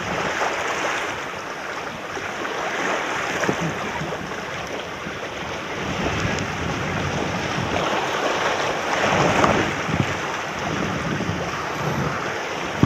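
Small waves washing and breaking over shoreline rocks, with wind buffeting the microphone; the wash swells louder about nine seconds in.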